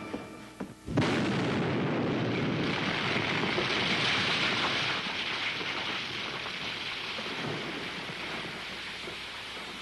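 A sound-effect explosion hits about a second in, followed by the long rushing noise of an avalanche sweeping over the train, which slowly fades.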